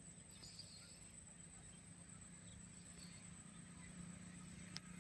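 Near silence: faint rural outdoor ambience with a steady high-pitched insect drone over a low hum, and a single sharp click near the end.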